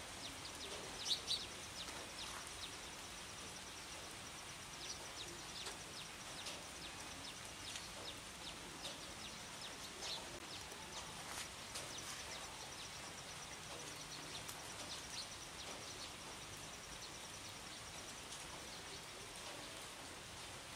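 Steady rain falling on leafy shrubs and a wet dirt path, with birds chirping over it: short high chirps, loudest about a second in, and a rapid high trill through the middle.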